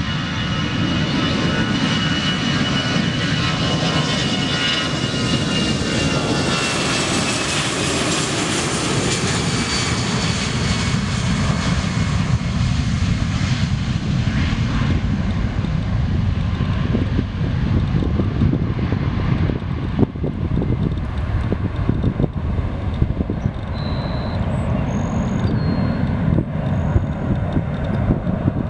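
LATAM Airbus A320-214's CFM56 turbofans at takeoff thrust: a high fan whine that slowly falls in pitch as the jet rolls past, giving way to a deep, steady rumble as it lifts off and climbs away.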